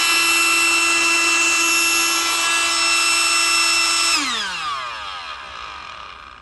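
Electric inflator/deflator air pump running with a steady whine and rush of air, then switched off about four seconds in and winding down with a falling pitch. It is running again after the loose wire between its switch and power connector was resoldered.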